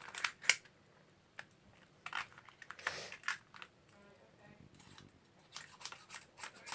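Irregular clicks and short scrapes of a BB gun being handled while its jammed barrel is cleared with a paintbrush handle.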